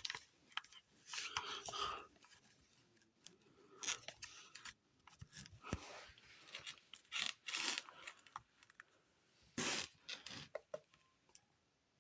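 Faint, scattered handling noises in a small room: short rustles, scrapes and clicks, as of the small plastic speaker being handled and its buttons pressed.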